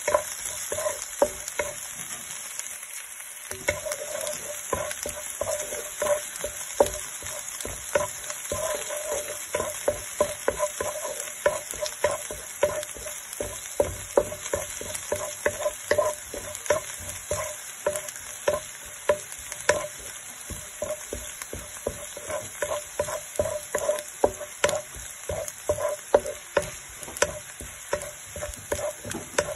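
Minced green onion and garlic sizzling in oil in a non-stick wok, while a wooden spatula stirs them with steady repeated scrapes and light knocks against the pan.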